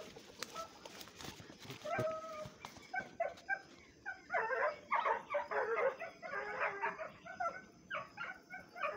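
Dogs barking and yelping: scattered short yips for the first few seconds, then a dense run of repeated barks from about four seconds in until near the end.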